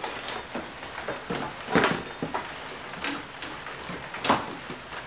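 Scattered metallic clanks and knocks, the loudest about two, three and four seconds in, as a Honda K24 engine hanging on hoist chains is shifted in the engine bay to line it up with its rear mount.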